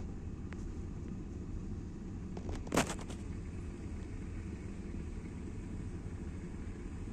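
Steady low rumble of a running vehicle, with one short sharp knock a little under three seconds in.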